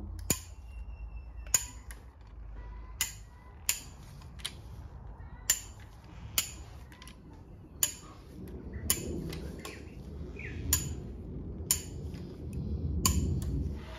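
Click-type torque wrench clicking off as the conrod bolts of a Holden grey straight-six reach their set 35 ft-lb, one sharp click roughly every second, with low handling rumble in the second half.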